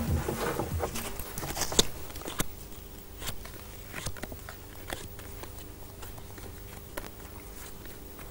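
Playing cards being picked up and sorted into hands at a card table: scattered soft clicks and snaps of cards, some seconds apart, over a faint room hum.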